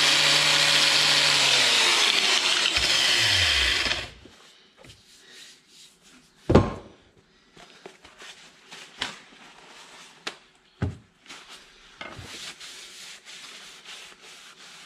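Angle grinder running against steel, its motor note falling as it winds down and stopping about four seconds in. Then a sharp metal knock about six and a half seconds in, followed by lighter clinks and taps of steel parts being handled.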